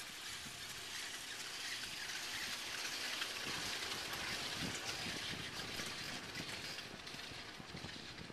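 Steady rushing hiss of air and wind around a moving chairlift chair, swelling a little around the middle.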